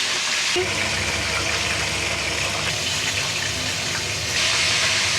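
Lumpia deep-frying in hot oil: a steady sizzle that grows louder near the end. A low hum comes in about half a second in.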